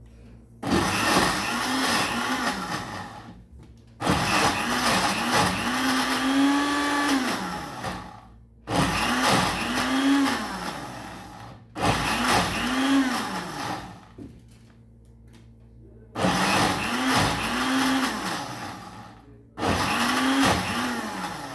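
Countertop electric blender grinding garlic and red chilies in cooking oil into a paste, run in six pulses of a few seconds each. The motor speeds up at the start of each pulse and winds down when it is let go.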